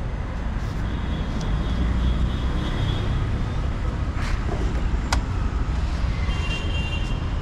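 Steady street traffic rumble, with a single sharp click about five seconds in.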